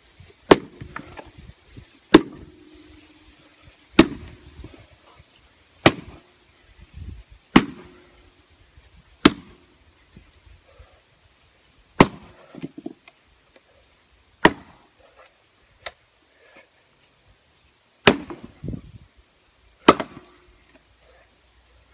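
Husqvarna S2800 splitting axe striking a red oak round, about ten sharp blows roughly every two seconds with a longer pause near the middle. Several blows are followed by a short ring.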